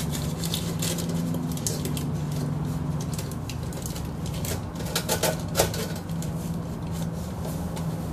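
Light clicks and knocks of a baking pan being handled and settled into a plastic air fryer basket, with a few louder knocks about five seconds in, over a steady low hum.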